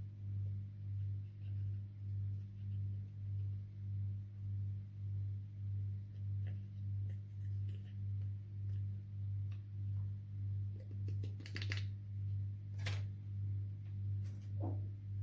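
A low droning tone that swells and fades about twice a second, with faint scattered clicks and a few short crackling sounds near the end.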